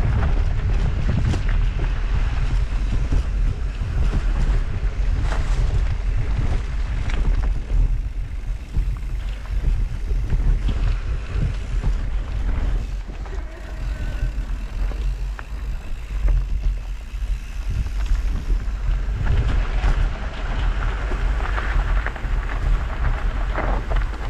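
Mountain bike riding on a dirt singletrack: a steady low wind rumble on the microphone over the rolling tyre noise, with scattered short knocks and rattles from the bike going over bumps, and grass brushing past.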